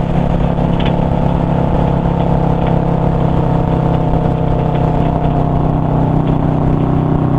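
Yamaha V-Star 650's air-cooled V-twin running steadily at cruising speed, engine pitch holding level, heard from the rider's seat with road and wind noise.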